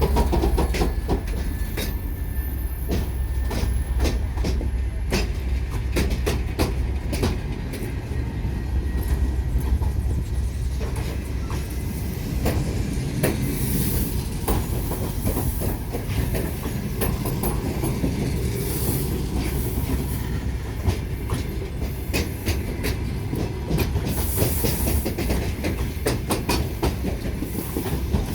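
A departing passenger train rolling along the track: a steady low rumble with many wheel clicks over the rail joints.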